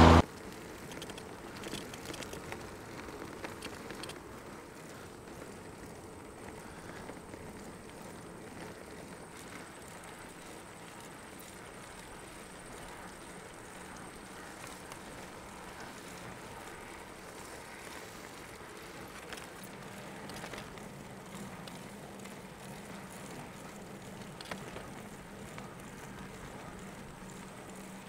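Bicycle rolling along a paved road: a quiet, steady noise of tyres and passing air, with scattered light clicks. A faint low hum joins about two-thirds of the way through.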